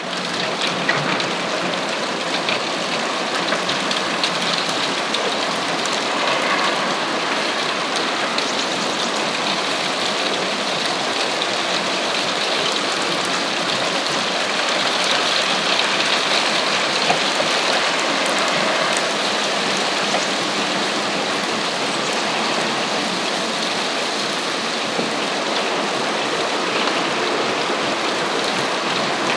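Hailstones falling steadily and hitting hard surfaces: a dense, even clatter of countless small ice impacts, like heavy rain with sharper ticks.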